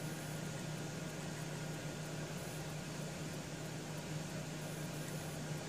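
Steady low hum with an even hiss of room background noise, with no distinct taps or other events.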